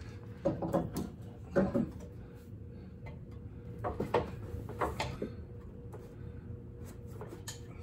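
Scattered metal clunks and knocks as a coilover shock assembly is worked into place in a vehicle's front suspension, with a faint steady hum beneath.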